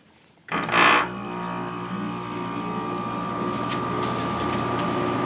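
LG 8000 BTU window air conditioner starting up about half a second in: a sudden surge as the compressor and fan kick on. It settles into a steady drone with a low hum and a high whine.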